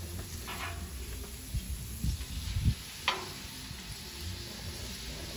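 Pork tenderloins sizzling in oil on a hot Blackstone steel flat-top griddle while they are turned with tongs. There are a few low thumps in the middle and a sharp click about three seconds in.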